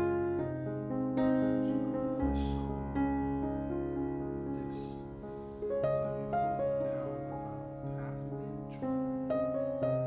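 Background piano music: a slow melody of single notes and chords.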